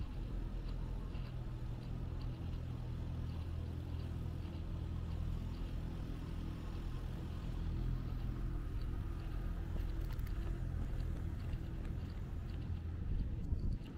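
Steady low engine rumble of motor traffic, with an even background hum of the street.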